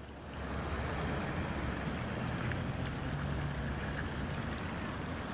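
Steady outdoor rushing noise, wind on the microphone, with a faint low motor hum underneath in the middle.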